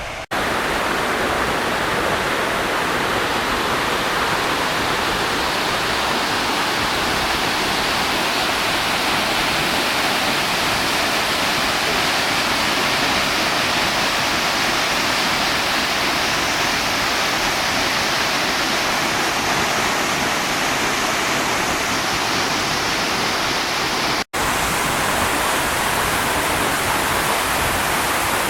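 Steinsdalsfossen waterfall pouring: a loud, steady, dense rush of falling water, broken by a momentary gap a few seconds before the end.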